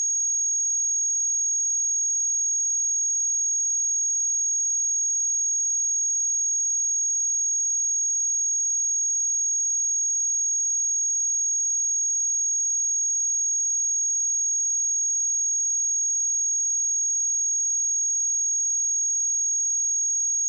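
A steady, high-pitched pure sine-wave test tone at 6586 Hz, unbroken and unchanging in pitch and level.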